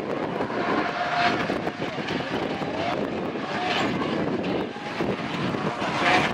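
Two drift cars' engines running hard at high revs, surging louder every couple of seconds, with short bursts of tyre squeal as the cars slide sideways through the corners.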